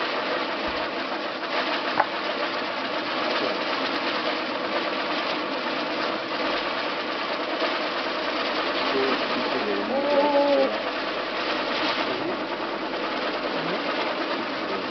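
Fountain firework spraying sparks, giving a steady rushing hiss throughout, with a single sharp crack about two seconds in.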